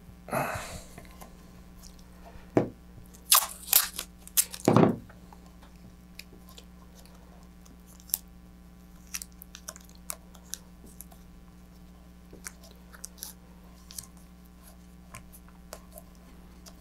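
Hand-handling noises of shock cord and tape being worked while a knot is finished off: several loud, short rasping rustles in the first five seconds, then faint scattered clicks and rustles, over a faint steady low hum.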